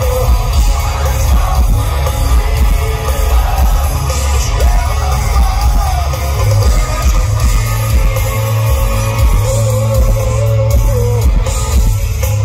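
Live rock band playing loud, with a male lead singer over electric guitars, bass and drums; the low end is heavy and dominant. The singer holds long notes near the end.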